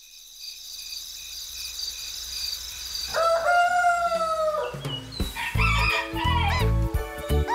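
A high, shimmering chime tone, then a rooster crowing once about three seconds in, a long call that falls slightly at the end, the wake-up signal of morning. Children's music with a steady bass beat starts about five seconds in.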